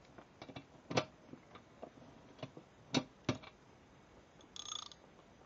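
Scattered clicks and knocks of a metal hand tool and hardware against a steel saw-stand frame during assembly, the sharpest about a second in and twice near the middle, with a short metallic clink near the end.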